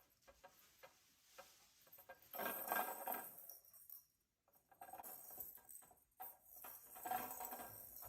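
Soft rustling and scattered light taps from cats moving about and playing. The rustling comes in three stretches after about two seconds.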